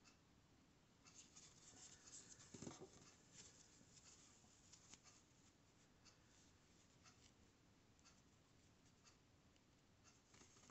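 Faint scratching and rustling of yarn and a yarn needle being worked through crocheted stitches while picking up the stitches of a magic ring, busiest in the first few seconds, with a soft bump about two and a half seconds in.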